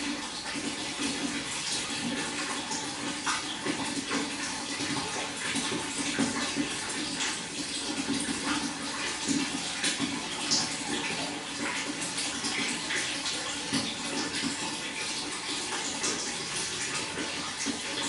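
Water flowing steadily, a continuous splashing trickle with many small quick splashes.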